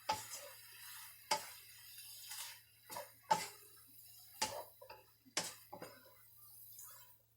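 Metal cooking utensil knocking against a pan while stir-frying: about seven sharp knocks at irregular intervals, each with a brief ring.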